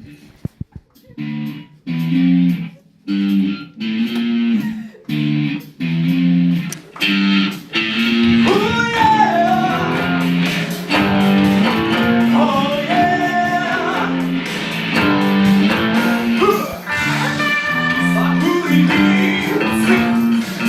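Guitars playing a song's instrumental intro: short, choppy chords with gaps between them for the first several seconds, then continuous playing with a lead melody that bends in pitch over the chords.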